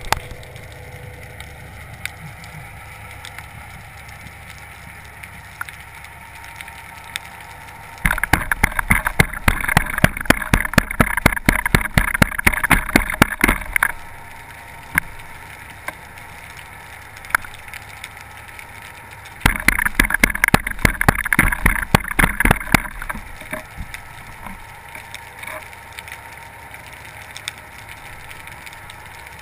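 Underwater sound picked up through a camera housing while spearfishing: a steady low hiss with scattered clicks, broken twice by several seconds of dense, rapid crackling clicks, the first about eight seconds in and lasting some six seconds, the second shorter, near two-thirds of the way through.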